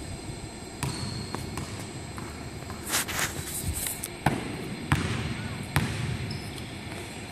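Basketball bouncing on a wooden gym floor, about five sharp thuds spread across the few seconds, with a short scuffing noise about three seconds in.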